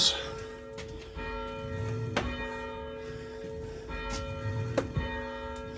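Church bell swung by its rope, its clapper striking a few times about two to three seconds apart, with the bell's tone ringing on between strikes.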